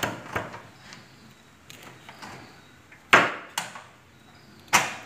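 Cleaver chopping crispy fried pork belly on a wooden chopping block: a series of sharp chops, the two hardest about three seconds in and near the end.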